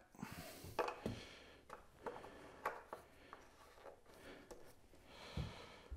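Faint scattered clicks and rustling as a gloved hand screws the oil fill cap back onto an outboard engine.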